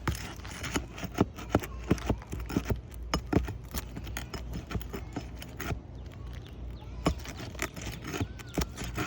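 Irregular sharp clicks, knocks and scrapes of a tool prying nails out of asphalt roof shingles, over a low steady hum.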